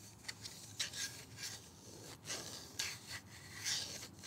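Fingertips and nails scratching and rubbing across a wire mesh held in a red plastic frame, in quick irregular rasping strokes, as an ASMR trigger sound.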